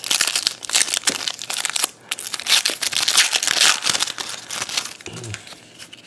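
A trading-card pack's foil wrapper being torn open and crinkled by hand: a dense crackling in two long stretches that fades out near the end.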